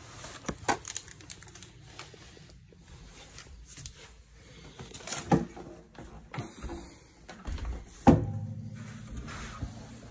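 Scattered knocks and bumps from handling, the loudest a sharp thump about eight seconds in followed by a fading low hum.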